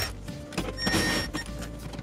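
Cordless drill-driver with a 10 mm socket whirring for a little under a second as it spins out a bolt, with a few light clicks of the socket and bolt around it.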